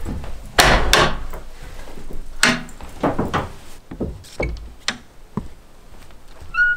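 A series of sharp knocks and clatters, as of wood being handled, with a brief squeak near the end.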